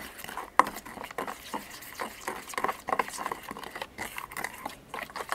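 A utensil stirring a thick spice, lemon-juice and oil marinade in a bowl, with irregular clicks and scrapes against the bowl as the paste is mixed.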